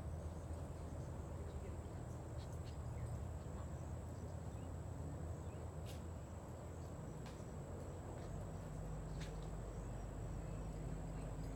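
Faint outdoor background: a steady low hum and rumble with a thin, steady high whine over it, and a few faint clicks.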